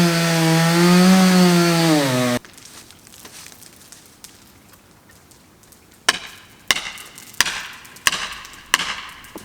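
Chainsaw engine running at speed, its pitch wavering, then dropping and stopping abruptly about two seconds in. After a few seconds of quiet come five sharp, ringing strikes on wood, about two-thirds of a second apart.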